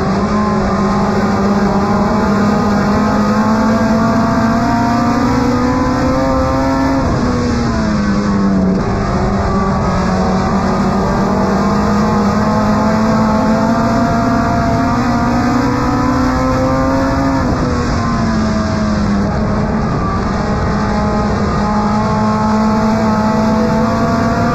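Compact dirt-track race car's engine at racing speed, heard from inside the cabin. Its pitch climbs slowly and drops off sharply twice, about ten seconds apart, then climbs again.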